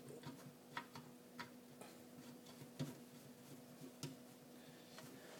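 Faint, scattered clicks and light taps at irregular intervals, small parts of a toy steam engine being handled, over a faint steady hum.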